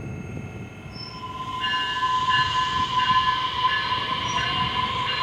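Metra Electric electric multiple-unit train starting to pull away from the platform; about a second in a steady high whine from its electric drive sets in and grows louder over the rumble of the cars.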